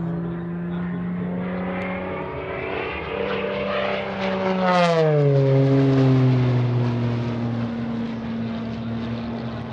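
Piston engine and propeller of an MXS aerobatic monoplane running at high power as it makes a pass. It grows louder and is loudest about five seconds in, where its pitch drops sharply as it goes by, then it holds steady at the lower pitch.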